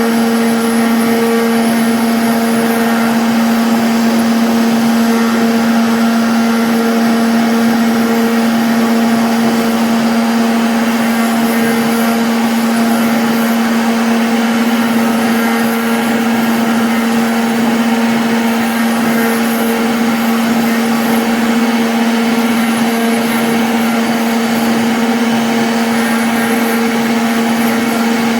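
CNC router spindle running with a steady whine while the bit cuts a 2D jali lattice pattern, its cutting noise continuous and even.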